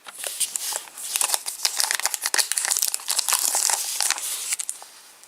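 Crinkling of a foil Match Attax trading-card packet being handled and torn open, a dense crackle that fades out near the end.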